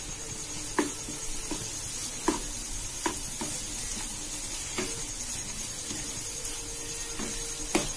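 Shallot and tomato masala sizzling in a nonstick kadai while a spatula stirs it, scraping across the pan about six times at uneven intervals, the last scrape near the end the loudest.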